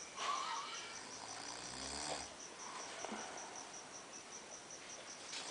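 A sleeper snoring: a few slow breaths, the loudest a rasping snore about two seconds in. A faint high-pitched pulsing repeats rapidly and evenly in the background.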